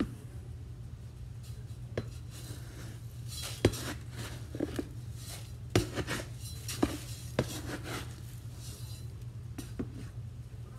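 A slotted metal cat-litter scoop digging and scraping through granular litter in a plastic litter box, with sharp clinks and knocks as it hits the box and a rasping, sifting hiss as the grains pour through the slots. A steady low hum runs underneath.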